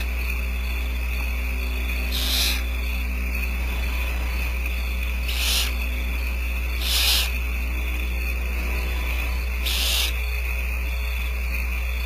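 Barn owl owlets giving their raspy, hissing begging calls: four short hisses a few seconds apart during a feeding. A steady low electrical hum from the nest-cam audio runs underneath.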